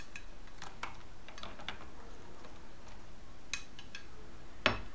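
Quartered mushrooms being pushed off a ceramic plate with a spatula into a silicone steam case: scattered light clicks and taps of the spatula on the plate and the pieces dropping, with one louder knock near the end.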